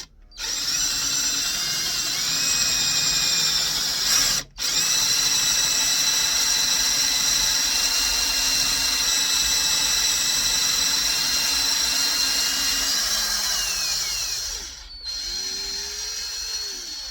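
Electric drill boring into cast iron, running at speed with a steady high whine. It cuts out for a moment about four seconds in, slows after about fourteen seconds, stops briefly, then runs again at a lower speed before stopping.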